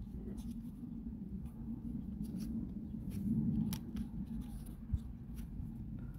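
Thin laser-cut plywood kit sheets being handled and slid over one another on a cutting mat, with scattered light clicks and taps of wood on wood. A low steady hum runs underneath.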